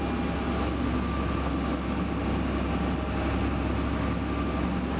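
Motorboat under way: a steady engine drone mixed with the rush of water from the wake.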